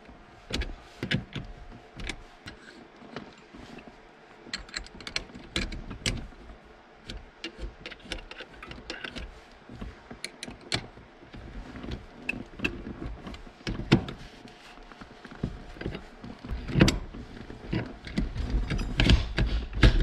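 Ratcheting wrench clicking and metal clinking as the 8 mm nuts and bolts are tightened on a billet aluminium shifter assembly, in irregular clusters of sharp clicks. The clatter gets busier and louder near the end.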